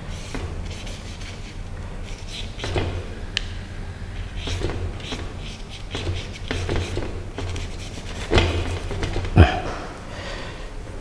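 Paintbrush rubbing and dabbing paint onto paper in short, irregular strokes, over a steady low hum. Two sharper knocks come about a second apart near the end.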